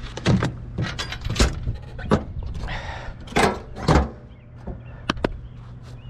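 A series of sharp knocks and clunks, with a brief rushing noise about three seconds in, over a low steady hum.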